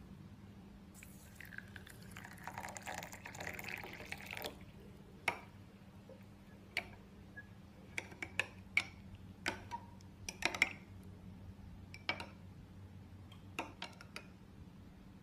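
Water poured into a small glass bowl of basil (sabja) seeds for a few seconds. A metal spoon then stirs the soaked, swollen seeds, clinking sharply against the glass a dozen or so times.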